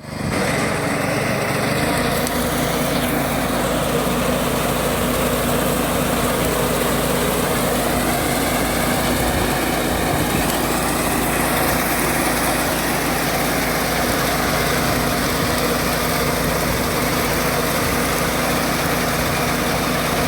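Small engine of a ride-on crop reaper running steadily at working speed, with dense mechanical clatter from the machine.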